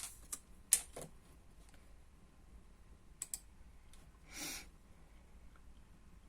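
Faint room tone with a few scattered sharp clicks, about four in the first second and two more a little after three seconds, and one short hiss-like swish about four and a half seconds in.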